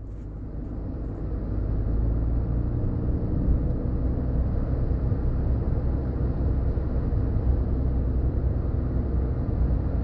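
Car driving along an open road: steady low engine and tyre rumble, fading in over the first couple of seconds.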